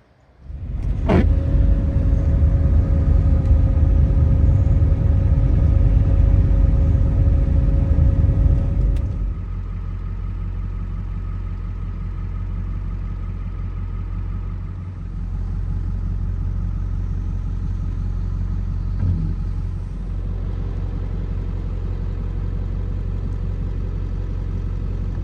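Motor vehicle running at a steady speed: a low, steady rumble with an engine hum, easing to a lower, even level about nine seconds in. A sharp click sounds about a second in.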